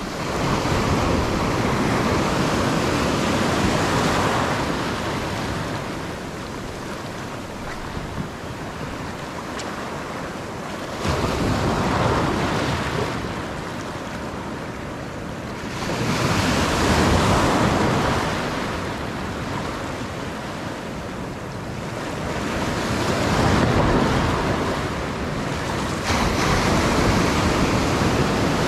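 Ocean surf breaking and washing over shoreline rocks, swelling and fading every few seconds as each wave comes in, with wind buffeting the microphone.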